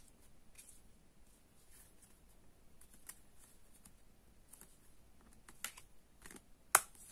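Oracle cards being handled by hand: scattered light clicks and taps of card against card as they are picked up and laid on a pile, with one sharper tap near the end.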